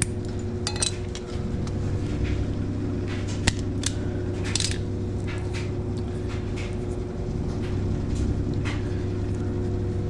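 Scattered sharp metallic clicks and clinks of hand tools on wire, a wire cutter snipping through a dryer heating-element lead, over a steady low hum.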